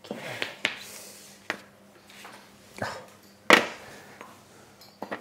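Small metal savarin moulds holding brioche dough being set down and shifted on a metal baking tray: a few separate knocks and clinks, the loudest about three and a half seconds in.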